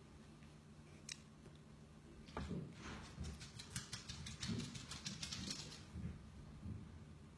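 Faint rustling with a quick run of light clicks for about three and a half seconds, starting a couple of seconds in, over a low steady hum.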